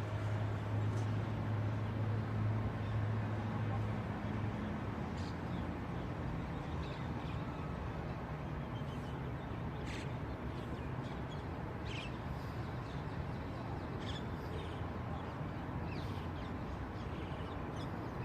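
Outdoor background noise: a steady hiss with a low hum that fades out about four seconds in, and a few short, scattered bird calls.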